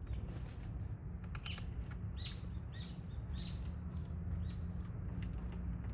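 Wild birds calling: a run of short chirps about half a second apart through the middle, with a few thin, very high notes, over a steady low rumble.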